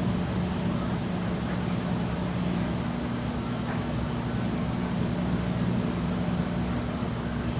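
Steady hum of an electric fan running, with a low drone underneath an even whir.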